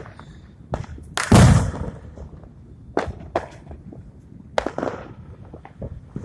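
Fireworks going off: a run of sharp bangs, the loudest about a second in with a long rumbling tail, then several more spaced a second or so apart.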